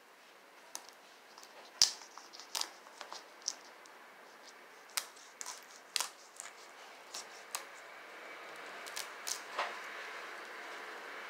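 A knife working raw shrimp on a wooden cutting board: irregular sharp clicks and taps, the loudest about two seconds in, over a faint hiss that grows louder in the second half.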